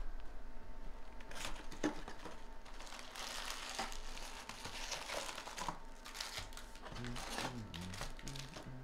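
A cardboard hobby box is opened, then foil-wrapped Bowman Draft Jumbo card packs are pulled out and stacked, their wrappers crinkling, with a few sharp clicks.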